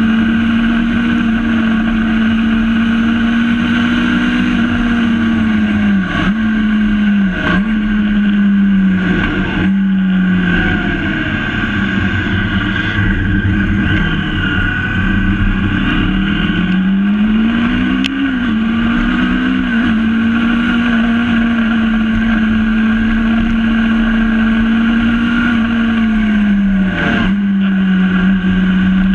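Engine of a fast-moving vehicle running at high, steady revs, dipping briefly in pitch several times as it lifts or changes gear, easing down through a longer slowdown mid-way and climbing back up, with another dip near the end, over steady road and wind noise.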